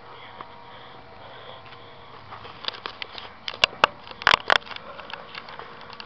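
A faint steady hiss, then from about halfway through a run of sharp clicks and knocks, with the four loudest close together a little past the middle.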